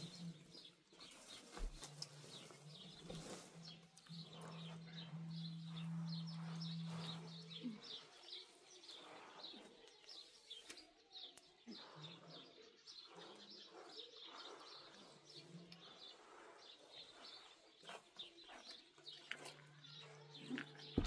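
Many small birds chirping and twittering in quick, high, scattered notes, faint throughout. Under them a low steady hum runs for the first several seconds and returns near the end.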